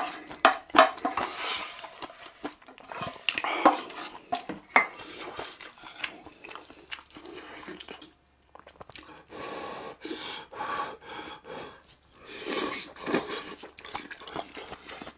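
Close-miked eating sounds: chewing mouthfuls of bibimbap, with a metal spoon clinking and scraping in a metal yangpoon mixing bowl. There are irregular short clicks and noisy mouth sounds, with a brief gap about eight seconds in.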